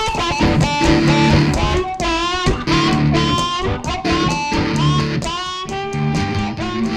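Background music: electric guitar playing a blues line with bent notes over a bass.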